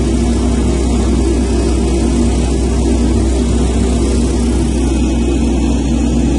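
Excavator diesel engine running steadily under load, heard from inside the cab, as it powers a hydraulic drive head screwing a steel helical pile into wet ground.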